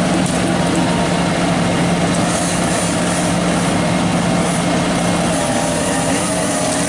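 Engine of tree-removal equipment running steadily at an even speed, with a constant low hum.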